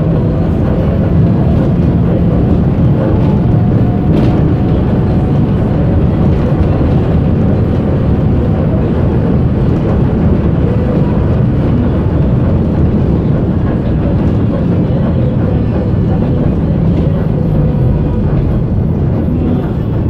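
Bus engine and road noise heard from inside the cabin of a moving city bus: a loud, steady low drone with a faint hum.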